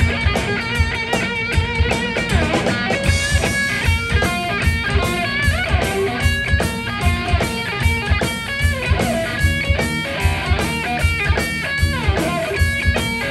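Three-piece electric blues band playing live with no vocals: electric guitar playing bending notes over bass guitar and a steady drum-kit beat.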